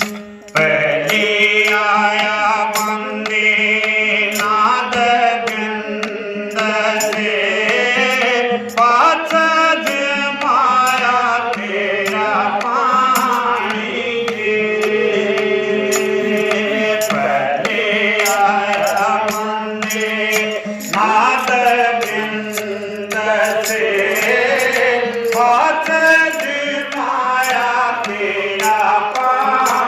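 A devotional Hindi bhajan being sung: one voice carrying a winding melody over a steady held drone, with short percussion strokes throughout.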